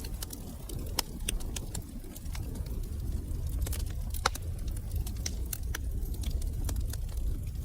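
Fire burning in a fireplace and crackling: many sharp pops and snaps at irregular intervals, a louder one about four seconds in, over a steady low rush of flames.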